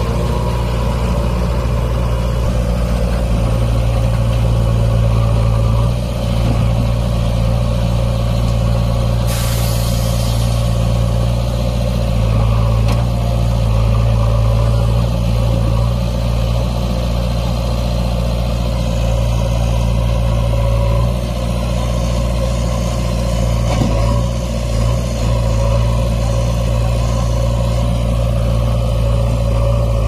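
Diesel engines of a JCB 3DX backhoe loader and a Tata tipper truck running steadily at close range. About nine seconds in there is a short sharp hiss of air, like an air-brake release.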